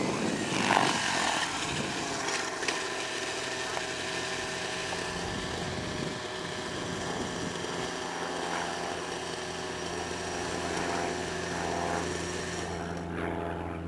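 Miniature Aircraft Stratus 90 RC helicopter's .90-size nitro engine and rotor running at a steady drone.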